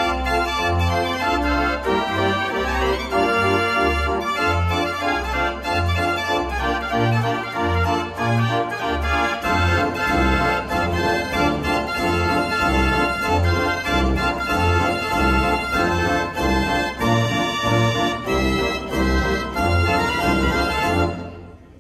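Dutch street organ (draaiorgel) 'De Brandweer', built by Perlee of Amsterdam, playing a tune: pipe melody and chords over a rhythmic bass. The tune ends near the end and the last sound dies away.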